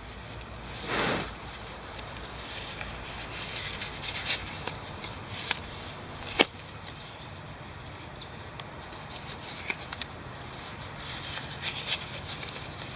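Thin gloves from a repair kit being pulled on by hand: soft rustling and rubbing, a swell about a second in, and a few sharp clicks.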